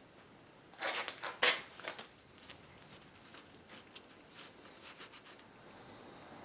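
Hands working at a glued wood repair: a few sharp rubs of a rag wiped over the wood, loudest about a second in, then light scattered clicks and taps as a clamp is set over the patch.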